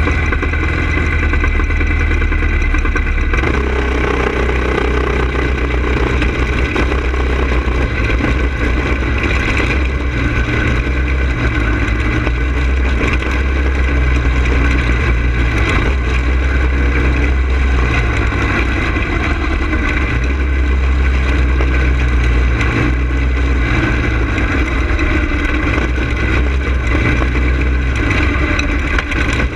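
Go-kart engine heard from on board, running steadily at first, then changing about three seconds in as the kart pulls away and runs laps on a dirt oval, its note rising and falling through the turns.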